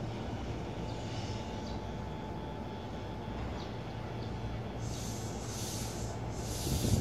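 Kintetsu limited express electric train starting to pull away from the platform: a steady low hum and rumble from the train, with short bursts of hiss near the end.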